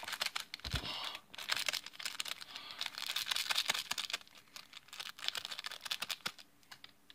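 Foil ramen seasoning packet crinkling and rustling as it is squeezed and shaken out over a bowl of noodles: a dense run of quick crackles that stops near the end.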